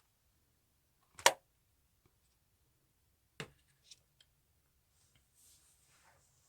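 Banana-milk slime being played with by hand: a loud sharp pop about a second in, a second pop near the middle, a faint smaller one just after, and a soft squishing stretch near the end.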